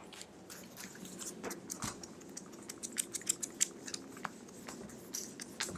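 Whiteboard duster rubbed over a whiteboard to wipe off a drawing: a faint run of short scrubbing strokes.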